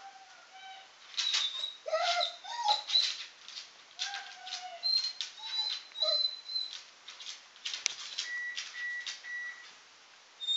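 Basset hound whining and whimpering in a string of short high-pitched squeaks, frustrated at a treat it cannot reach, with sharp clicks of claws on a hardwood floor among them.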